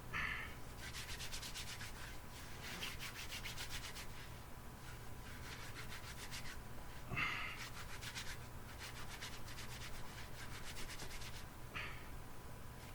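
Jute twine being rubbed and teased apart between the hands to loosen its fibres for a tinder nest: runs of quick, dry rasping strokes, with a few short louder scuffs, the loudest about seven seconds in.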